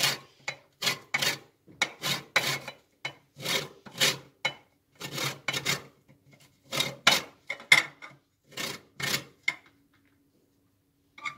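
Lemon rind being grated on the fine holes of a stainless steel box grater, zesting the lemon. Short rasping strokes come about two to three a second in runs and stop about nine and a half seconds in.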